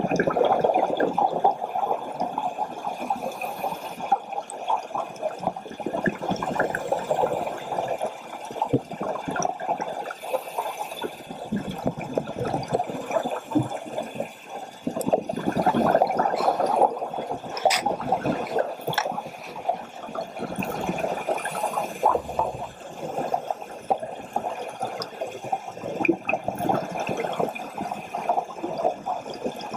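Underwater recording of scuba divers' exhaled bubbles, a gurgling, rushing water sound muffled through the camera housing, swelling and easing every few seconds with each breath.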